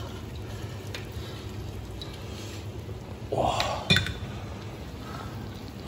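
Metal skimmer and ladle setting a braised pork knuckle down on a ceramic plate: a soft thump about three and a half seconds in, followed right after by a couple of sharp metallic clinks against the plate, over a low steady background hum.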